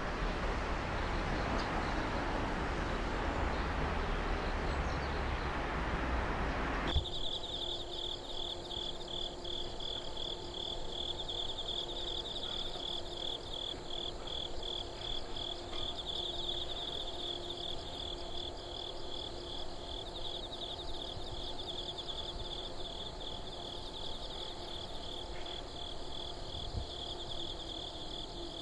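A train running by, an even rushing noise that cuts off abruptly about seven seconds in. Then insects trill in rapid, steady pulses, high-pitched, over a faint steady hum.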